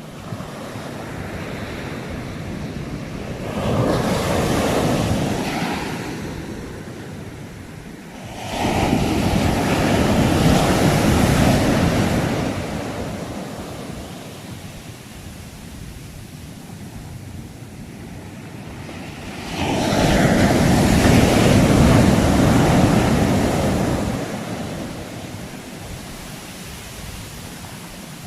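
Sea waves breaking on a shore: three loud crashes, about 4, 9 and 20 seconds in, each washing out over a few seconds, over a steady surf wash.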